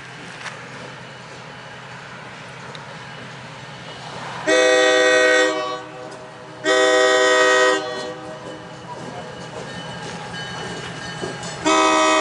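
Locomotive horn sounding three blasts, a chord of several steady notes: two blasts of about a second each a little under halfway through, and a third starting near the end. A steady low rumble of the train runs underneath.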